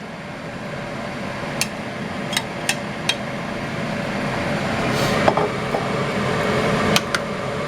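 Scattered sharp taps and clinks of a utensil against a canning jar and the stew pot as home-canned rabbit meat is emptied into the stew, over a steady hiss that grows gradually louder.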